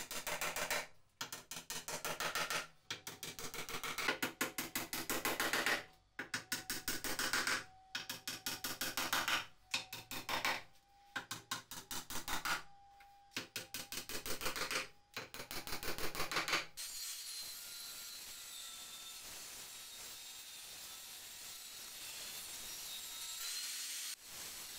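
Bursts of quick hammer strikes on wood, driving small pins into a bench rail, with short pauses between bursts. About 17 seconds in this gives way to a table saw running steadily while a board is pushed across the blade.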